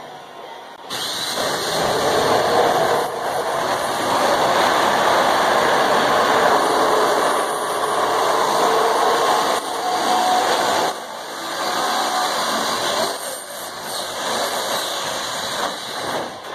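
Harbor Freight power sheet metal shear running as it cuts through sheet metal. It starts about a second in and pauses briefly twice, near ten and eleven seconds, before cutting on.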